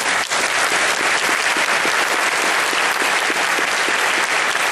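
Audience applauding, breaking out suddenly and keeping up a loud, steady clapping.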